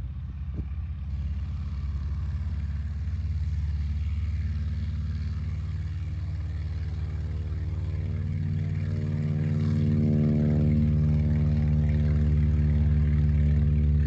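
A vintage Stinson Reliant light aircraft's engine and propeller running steadily as it moves along a dirt airstrip. The engine grows louder about ten seconds in.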